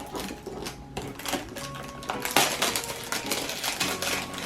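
Hard plastic clicking and rattling from a toy package and its fidget-toy parts being handled and opened, in a quick irregular series of small knocks.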